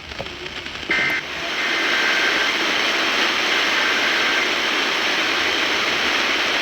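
Weather radio: the last of three short Emergency Alert System end-of-message data bursts, a harsh two-tone warble about a second in, marking the end of the warning. It is followed by a steady hiss of radio static.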